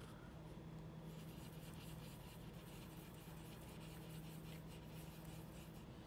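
Faint scratchy brushing of a paintbrush working paint back and forth, starting about a second in, over a low steady hum.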